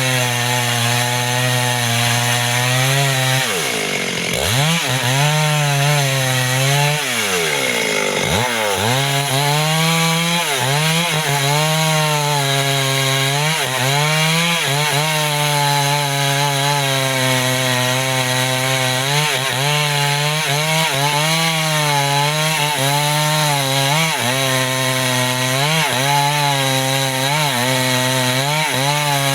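Chainsaw running at high revs while felling a mahogany tree. The engine speed drops sharply and climbs back twice about four and eight seconds in, then wavers steadily up and down as the chain cuts.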